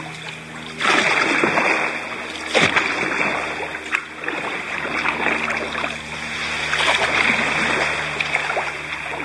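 Sea kayak paddle strokes: water splashing and dripping off the paddle blades in a surge every second or two as the kayak moves along the water.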